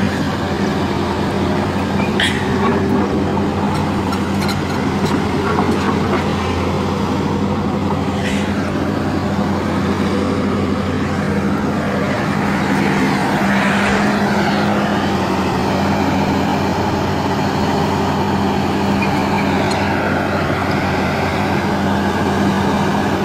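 Doosan hydraulic crawler excavator's diesel engine running steadily under load as the machine crawls and tilts on its tracks, with a few sharp knocks and a whine that rises and falls about halfway through.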